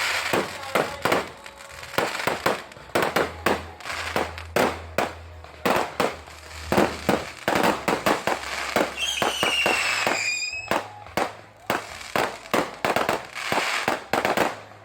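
Fireworks display: a rapid, irregular string of aerial shell bursts and bangs, several a second. About two-thirds of the way through, a whistling firework sounds for under two seconds, falling slightly in pitch.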